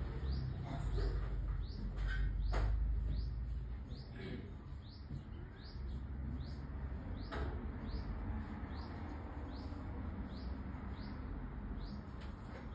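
A small bird chirping repeatedly, short falling chirps at a steady pace of about two a second, over a low steady background rumble with a few faint handling clicks.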